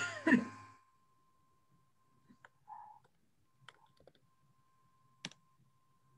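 A short bit of voice at the very start, then low room tone with a few faint, scattered clicks, the sharpest about five seconds in, over a faint steady high tone.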